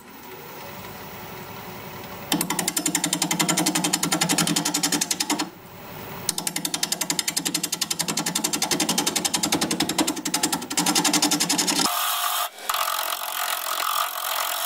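Wood lathe spinning a red mallee burl at 670 RPM while a 5/8-inch bowl gouge cuts into its face: after about two seconds of the lathe running alone, the cut starts as a fast, even pulsing chatter, in passes with short breaks between them. The wood is very hard and dense.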